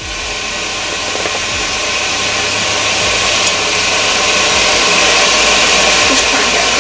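A steady rushing, motor-driven noise that grows gradually louder.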